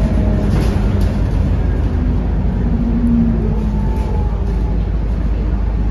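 Scania K230UB city bus heard from inside the passenger cabin while under way: the steady drone of its five-cylinder diesel engine with road and tyre noise. A short tone rises in pitch a little past halfway as the bus picks up speed.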